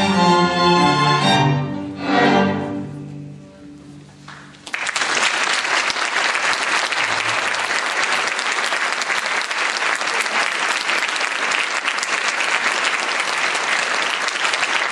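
A string orchestra plays the last bars of a piece, ending on a final chord about two seconds in that dies away. Just under five seconds in, the audience breaks into applause that goes on steadily.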